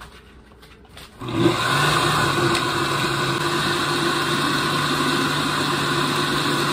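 Countertop blender switched on about a second in, its motor then running steadily as it purées banana, eggs, oats and milk into oat pancake batter.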